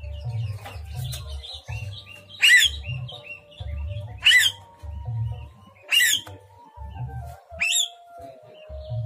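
A caged myna giving loud, harsh calls about every two seconds, four in all, with softer chirps between them. These are the calls of a myna in breeding condition, asking to be paired with a mate.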